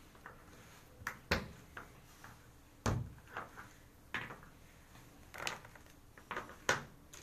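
White plastic shelf parts knocking and clacking against a wooden tabletop and each other as they are picked up and handled, about ten irregular knocks and clicks.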